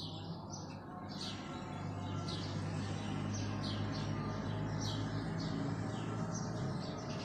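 Small birds chirping over and over, short falling chirps about two a second, over a steady low hum.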